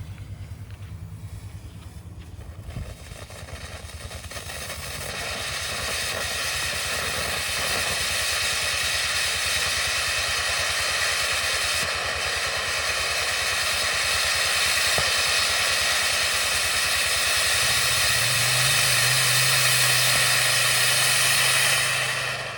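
Cone firework fountain burning with a loud, steady hiss as it throws its red flame and silver shower, building up a few seconds in and cutting off sharply near the end.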